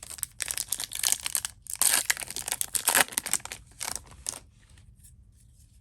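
Foil wrapper of an Upper Deck MVP hockey hobby pack being torn open and crumpled, a dense run of crinkling and tearing that stops about four and a half seconds in.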